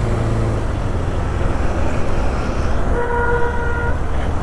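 KTM 390 Adventure's single-cylinder engine running steadily as the motorcycle pulls slowly onto the road. About three seconds in, a vehicle horn toots once for about a second.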